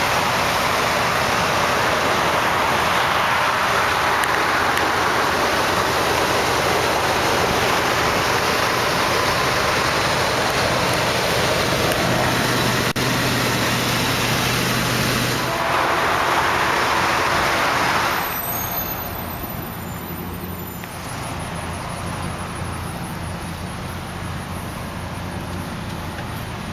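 Wind buffeting the microphone over the steady idle of a 1991 Chevrolet S10 pickup's engine. About eighteen seconds in the wind eases and the low, even idle hum comes through plainly.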